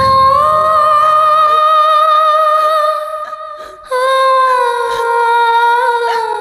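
Nepali ringtone music: a high female voice holds a long sung note that slides up at the start and fades about three seconds in. A second long note follows, sinking slowly and ending with vibrato. A low pulsing accompaniment sounds under the first second and a half.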